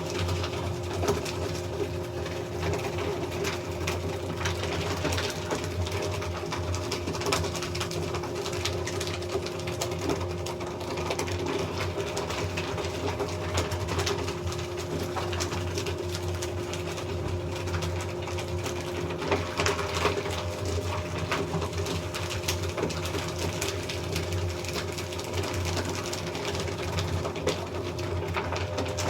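Electric paper shredder running steadily, its motor humming as the cutters feed through paper documents with a continuous dense crackle.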